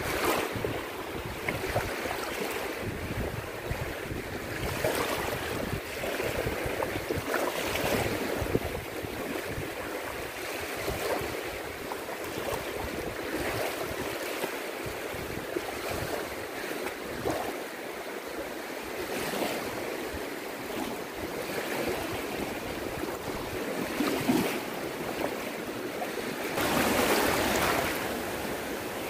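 Small waves washing in over sand at the water's edge, surging and easing in repeated swells, with a louder surge near the end.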